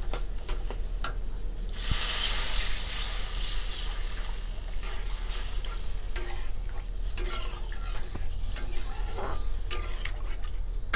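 Water poured onto fried masala paste in a hot steel kadai, sizzling loudly for about two seconds a couple of seconds in. After that a metal spatula stirs and scrapes the thinned curry against the pan.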